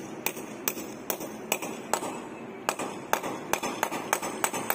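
Hammer tapping a dyna bolt (concrete sleeve anchor) into a drilled hole in a concrete wall: short, sharp metal-on-metal taps, about three a second, with a brief pause about two seconds in.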